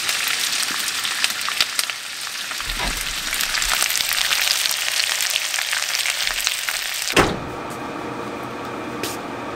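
Diced potatoes sizzling and crackling in hot bacon grease in a cast-iron pot, a dense hiss full of small pops. About seven seconds in it cuts off abruptly to a quieter steady hum.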